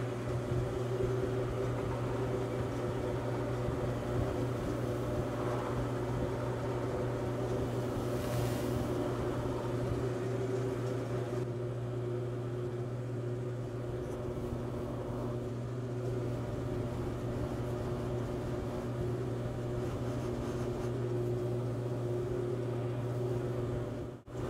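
Wood lathe motor running steadily at about 800 RPM, spinning a cloth buffing wheel on the outboard spindle: an even, unchanging hum.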